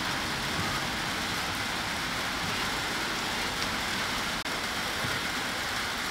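Steady, even outdoor hiss with no distinct event in it, and a momentary dropout about four and a half seconds in.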